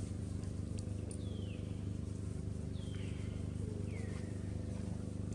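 A steady low hum, with a few short high calls that fall in pitch at intervals, like bird or animal calls.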